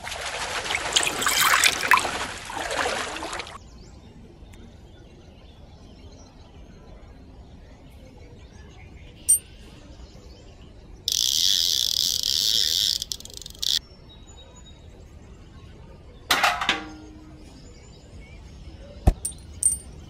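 Water poured from a small metal bucket into a shallow pond, splashing for about three seconds. About eleven seconds in comes a hiss of about two and a half seconds, then a brief splash and a sharp click near the end.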